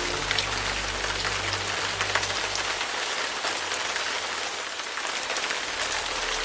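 Steady rain falling, a dense, even patter of drops with scattered sharper individual drop hits.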